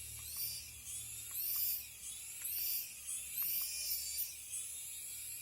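Tiny electric motors of a mini remote-control toy helicopter whining, spinning up in short bursts about once a second as the throttle is pulsed.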